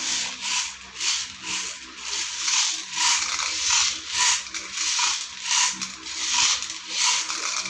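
BBs being loaded into an airsoft M4 rifle's magazine: a ratcheting rattle repeated about one and a half times a second, all through.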